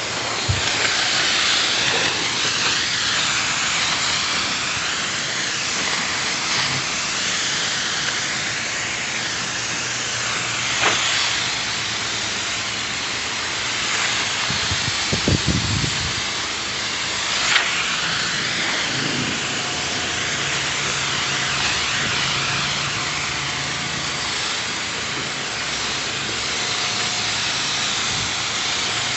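A sprayer hissing steadily and continuously, with a faint low hum underneath and a few light knocks partway through.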